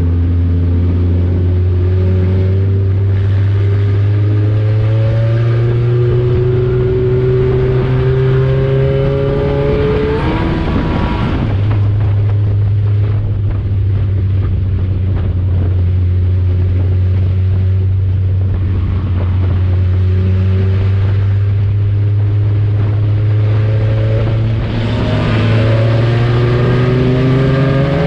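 Four-cylinder engine of an Econo4 dirt-track race car heard from inside its cabin, running hard under load. Its pitch climbs slowly along the straight, flares briefly and drops about ten seconds in, holds steady through the turn, then climbs again near the end.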